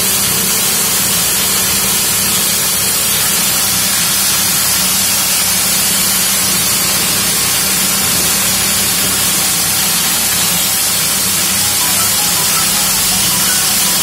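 Hammer-mill grain grinder running under load, its hammers spinning at about 3000 rpm as they grind maize kernels. It makes a loud, steady hissing rush over a low motor hum.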